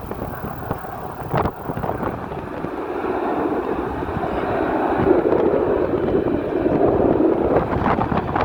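Jet engine noise of a Boeing 777 freighter, a broad rumble that grows steadily louder as the aircraft nears, with wind buffeting the microphone.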